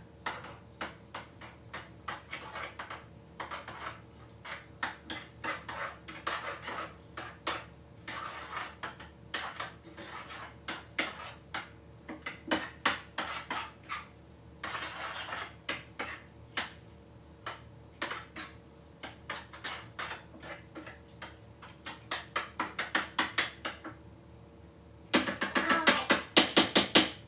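A kitchen utensil knocking and scraping against a bowl or pot in irregular clinks, as in mixing food. Near the end it turns into about two seconds of fast, even, louder strokes.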